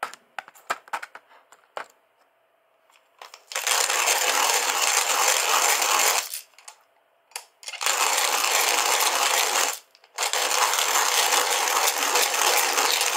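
Kalita hand coffee mill grinding coffee beans as its crank is turned: a loud, steady grinding in three spells of two to three seconds, with short pauses between. A few light clicks come before the grinding starts.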